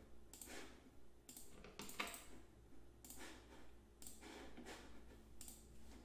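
Faint computer mouse and keyboard clicks: several soft, short clicks spread over a few seconds against quiet room tone.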